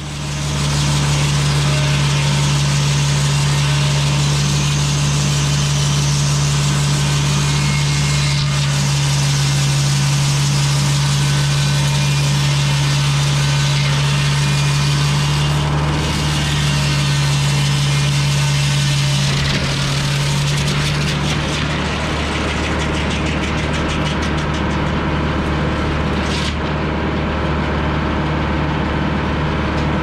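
GM 4-71 supercharged two-stroke diesel ('Screaming Jimmy') running steadily under load, driving a Frick sawmill's large circular saw as it rips a thin slab off a cedar log. The engine's steady drone shifts about twenty seconds in.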